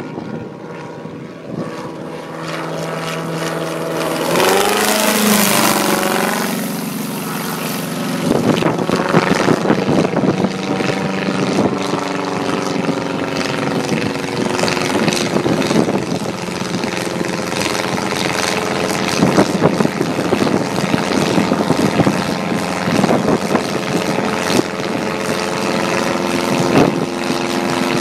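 Wallis autogyro's piston engine and propeller droning overhead. The pitch bends about five seconds in, then the drone holds steady and grows louder as the autogyro comes closer.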